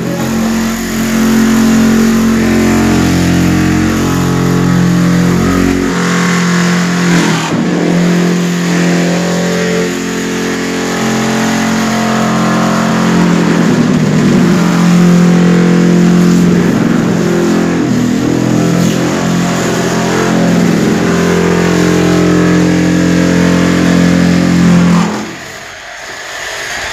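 Handheld electric tile vibration machine running with a steady loud hum, pressed onto a large-format wall tile to settle the adhesive, level it and drive out trapped air. Its pitch shifts slightly a few times as it is worked across the tile, and it stops about 25 seconds in.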